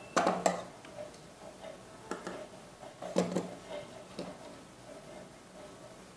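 Light clicks and knocks from fabric being shifted and folded by hand at a stopped domestic sewing machine. There are a handful of them, the clearest near the start and about three seconds in.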